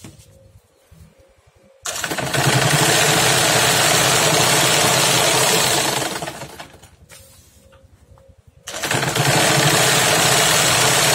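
Sewing machine running at speed, its needle punching a perforation line of holes through a stack of paper receipt forms. It runs in two stretches: starting about two seconds in and stopping a little past the middle, then starting again about three-quarters of the way through.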